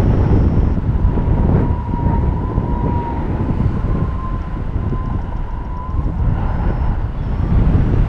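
Wind rushing and buffeting over the microphone in paraglider flight, steady and loud. Through it runs a thin, steady high tone that wavers slightly in pitch and fades out about six seconds in.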